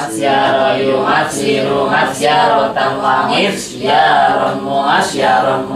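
A group of male students chanting Arabic morphology lessons together in unison, in a sing-song melody, the way verb patterns and verses are recited in a pesantren.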